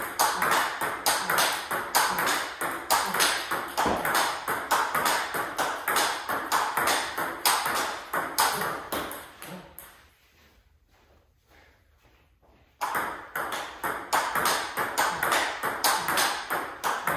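Table tennis forehand rally: the plastic ball clicks sharply off the rubber-faced rackets and bounces on the table, about three or four hits a second. The clicking breaks off into near silence for about three seconds a little past the middle, then starts again.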